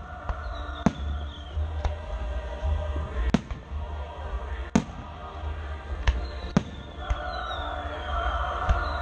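Aerial firework shells bursting in an irregular series of sharp bangs, about eight of them. Twice there is a falling whistling tone.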